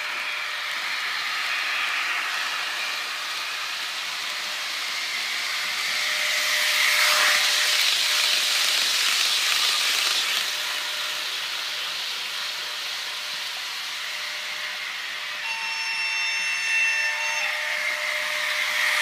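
HO-scale model express train running past on the layout track, a steady rushing of wheels on rail that swells as the coaches pass close, about six to ten seconds in, then eases. Near the end a pitched tone sounds for about two seconds.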